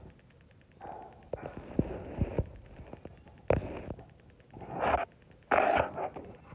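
Chickens close to the microphone making a series of short, harsh calls with a few sharp clicks among them, the loudest near the end as a hen comes right up to the phone.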